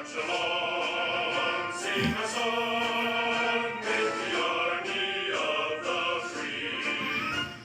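Choral music with orchestra: a choir singing long held notes over the accompaniment.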